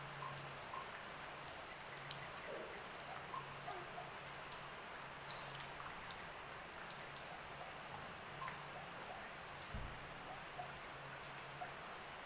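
Steady rain falling, with scattered sharp drops and drips.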